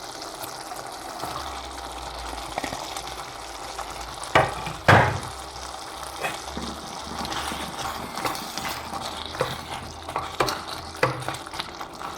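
Mince curry sizzling in a pot on the stove while it is stirred, with scattered small clicks and two louder knocks near the middle.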